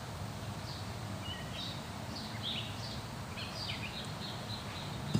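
Small birds chirping, a series of short high calls over a steady low background rumble.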